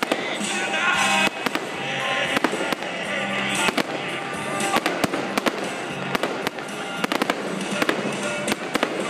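Aerial firework shells bursting in a display: sharp bangs and cracks, several a second and irregular, throughout.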